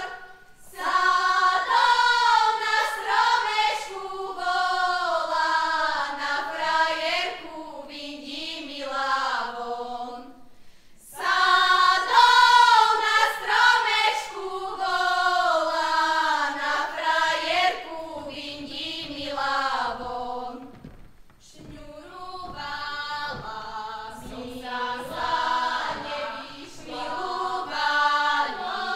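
Women's folk choir singing Slovak folk songs from Jánošík, a Lowland Slovak village in Vojvodina, in several voices. The phrases break off briefly about ten and twenty seconds in before the next phrase begins.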